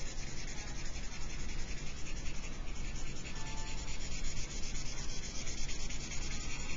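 Marker tip scrubbing quickly back and forth on a paper worksheet, shading in a box: a continuous scratchy rubbing made of many rapid strokes.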